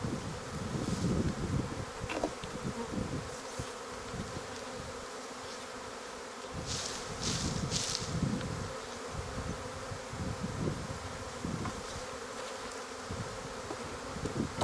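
A swarm of honey bees buzzing steadily around the hive as they settle in, with uneven low rumbles on the microphone and three short hissing rustles about seven seconds in.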